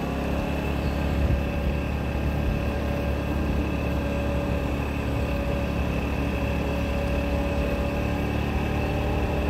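Moped's small engine running as it pulls away, its whine rising in pitch at the start and then holding steady, over a steady low rumble.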